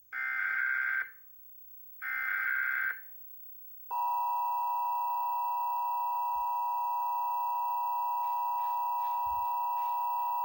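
Emergency Alert System tones: two one-second bursts of SAME header data tones a second apart, then about four seconds in the EAS two-tone attention signal (853 and 960 Hz) starts and holds steady.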